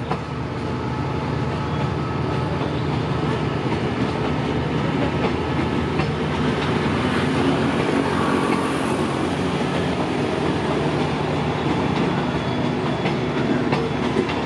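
Empty train of CNR passenger coaches rolling past, a steady rumble of wheels on rails with clacks as the wheels cross rail joints.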